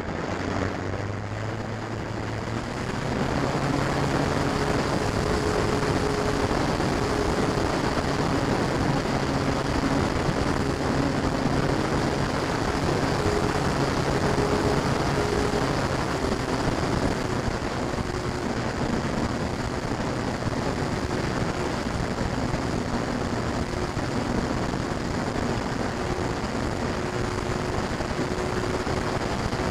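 Electric motor and propeller of a FlyZone Cessna 182 radio-control model, heard from its onboard camera. The motor spools up about three seconds in for the takeoff and climb, then runs steadily under a constant rush of wind and propeller wash.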